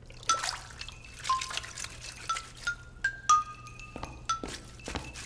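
Light background music of short plucked, bell-like notes, about two a second, each a different pitch, picking out a playful tune.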